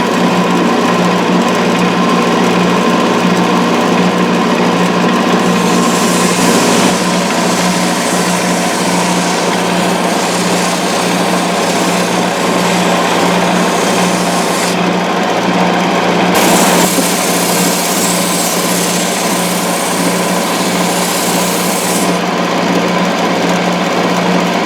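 Wood lathe running with a steady motor hum and whine while a turning tool cuts the spinning wood, adding a hissing scrape twice: briefly about six seconds in, then for several seconds from about fifteen seconds.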